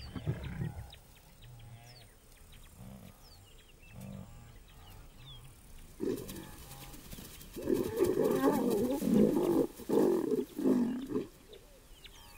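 Lions snarling and growling in a fight: a short snarl at the start, then a longer, louder bout of growls and snarls from about six to eleven seconds in. It is the dominant male attacking a young male that was mating with a lioness in his pride.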